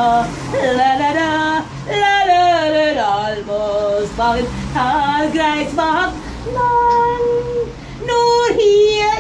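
A woman singing unaccompanied, holding long notes with slides in pitch between them.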